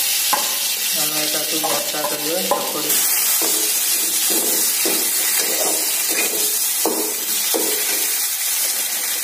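Mashed potato frying in hot oil in a steel pan, sizzling steadily as a spatula stirs and scrapes it around the pan.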